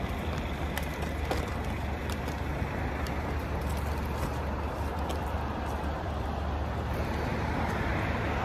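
Steady road traffic noise beside a city street, with a low rumble underneath and a few faint scattered clicks.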